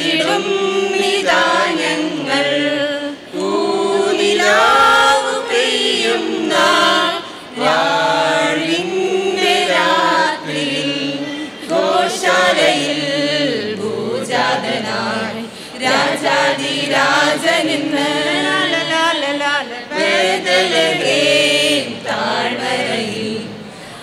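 Mixed choir of men and women singing a Malayalam Christmas carol in harmony, unaccompanied, in flowing sustained phrases.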